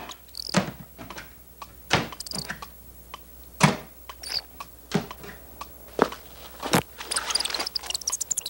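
A series of sharp knocks and clicks, roughly one a second and irregularly spaced, followed by a quick clatter of small clicks near the end.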